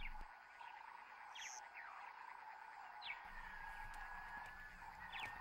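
Shiny burrowing scorpion hissing (stridulating) as a defensive warning to an intruder: a faint, steady rasping trill, with a few brief high falling chirps over it.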